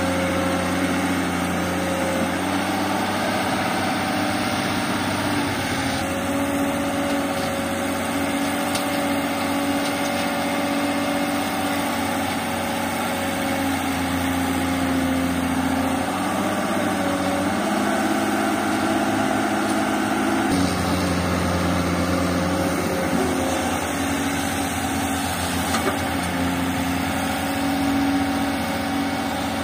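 Tata Hitachi EX110 excavator's diesel engine running steadily as it digs and loads soil, its pitch shifting for a few seconds about two-thirds of the way through.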